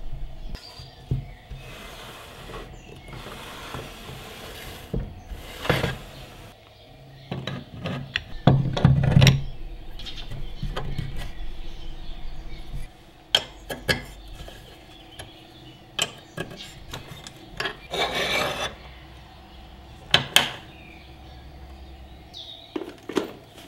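Hands handling a Bosch GTM 12 JL mitre saw's fittings while it is switched off: scattered clicks, knocks and rubbing as its clamp knobs and metal fence are touched and adjusted, with a couple of longer rustling stretches. A faint steady hum lies underneath.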